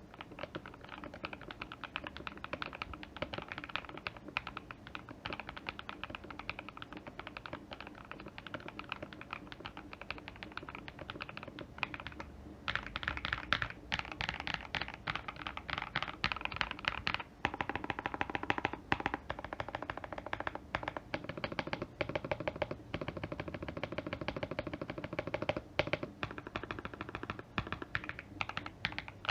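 Typing on a Feker IK75 mechanical keyboard with lubed Akko Matcha Green switches, a tempest-tape mod, PE foam between plate and PCB, and tuned, lubed stabilizers: a continuous fast stream of key clacks, louder and denser from about halfway through.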